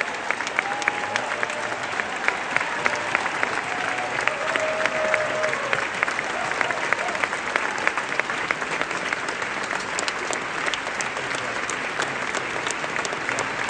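Opera house audience applauding steadily, with sharper individual claps close by standing out from the mass of clapping.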